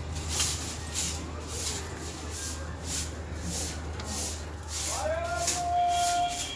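Broom sweeping a paved concrete courtyard floor in quick, even strokes, about two strokes a second.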